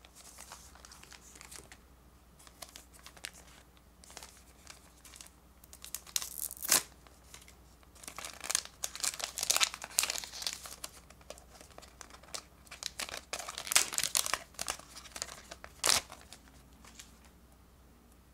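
A Pokémon card booster pack wrapper crinkling in the hands and being torn open by hand, in repeated bursts of crinkle and rip with quieter handling between.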